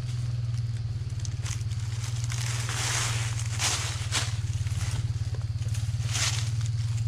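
Footsteps crunching and rustling through dry fallen leaves, in irregular crunches, over a steady low hum.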